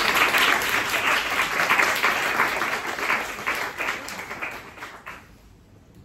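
Audience applauding, many hands clapping at once, then dying away about five seconds in.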